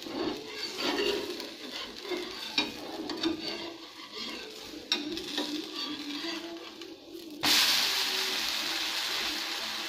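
Spatula scraping and clicking under a rava uttapam on a hot dosa pan, with faint frying. About seven seconds in the uttapam is flipped and a loud, steady sizzle starts suddenly as its raw side meets the hot oiled pan.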